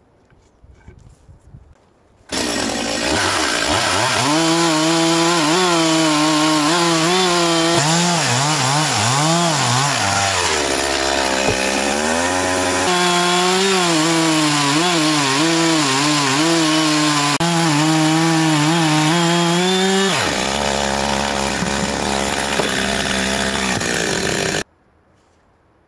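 Stihl two-stroke petrol chainsaw cutting through a log. It starts suddenly about two seconds in, with its pitch wavering as the chain bites and eases in the wood. It drops lower for a couple of seconds midway, runs steadier near the end, and then cuts off suddenly.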